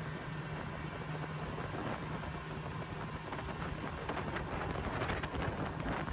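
Speedboat's outboard engine running at speed, a steady low drone under heavy wind rushing across the microphone, growing a little louder near the end.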